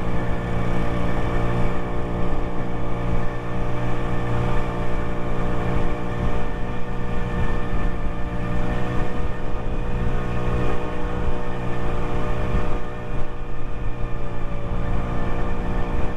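Lexmoto Echo 50cc scooter engine running at a steady cruising speed, its pitch holding level throughout, with wind rumble on the microphone.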